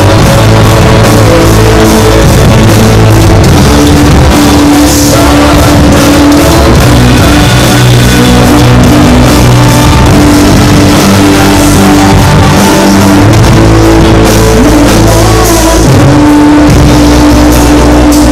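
Live praise band playing a loud rock-style song: drum kit, electric bass, electric guitar and keyboard, with a woman singing lead into a microphone and backing singers.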